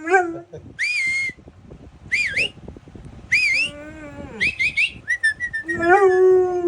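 A dog whining in short, high, rising-and-falling squeals, with a longer, lower howl at the start and again near the end.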